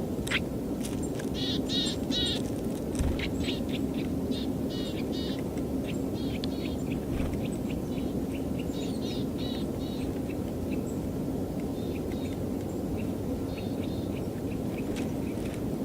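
Eurasian nuthatch hammering a sunflower seed with its beak: scattered sharp taps, with runs of short high chirping bird calls, over a steady low background rumble.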